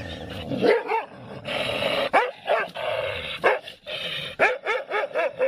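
A dog barking and yipping in short, high calls, coming quickly several in a row near the end.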